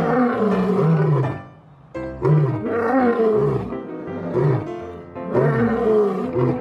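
Lion roaring in three long bouts, each a run of deep, falling calls, over background music.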